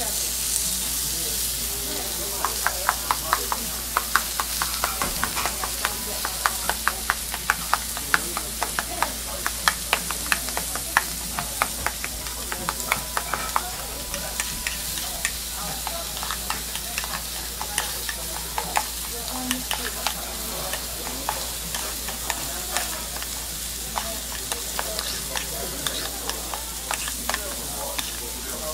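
A utensil clicking rapidly against a metal cup as shredded cabbage and egg are stirred into okonomiyaki batter, over the steady sizzle of pork belly slices frying on a hot iron griddle. The clicking starts a couple of seconds in and goes on in quick, uneven strokes.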